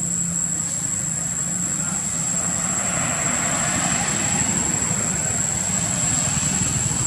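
Steady low engine-like drone under a continuous high-pitched whine, with a rush of noise that swells a few seconds in and fades again.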